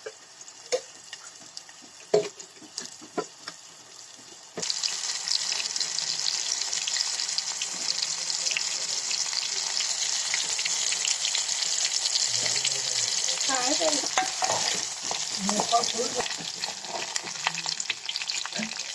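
Chopped onion frying in hot oil in a pan: after a few light utensil clicks, a loud sizzle starts suddenly about four and a half seconds in and keeps on while it is stirred.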